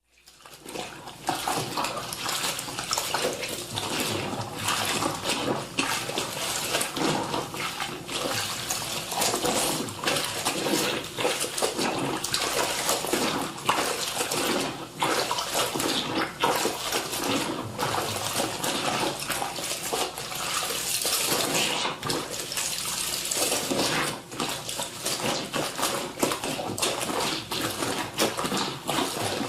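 Clothes being washed by hand in water: continuous irregular sloshing and splashing as wet fabric is rubbed and swished, fading in over the first second.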